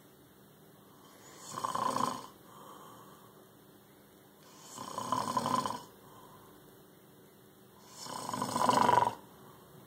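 A man snoring: three loud snores about three seconds apart, each growing louder and then cutting off, with faint breathing between them.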